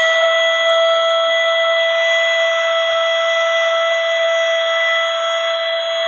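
Handheld cordless 3-in-1 mini vacuum and air duster running in vacuum mode at a CPU cooler fan: a steady, high motor whine over a rush of air.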